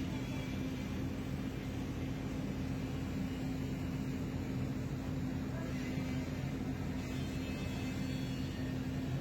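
Large engine running steadily at an even speed, a low hum with a fixed pitch that does not rise or fall.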